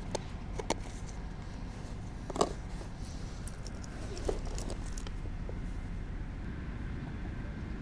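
Handling noises: a few light clicks, the sharpest about two and a half seconds in, as a plastic lure jar's screw lid and a shoulder bag are handled, over a steady low rumble.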